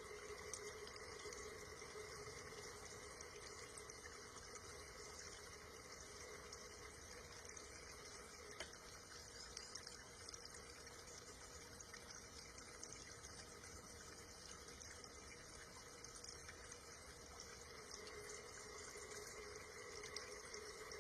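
Faint, steady running or trickling water with a low, steady hum under it.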